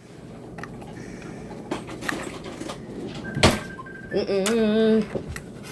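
A small knife clicking and scraping against a stuck oyster shell as it is pried at, in scattered small clicks with one sharper click about three and a half seconds in. Just after it comes a short steady hum-like note lasting under a second.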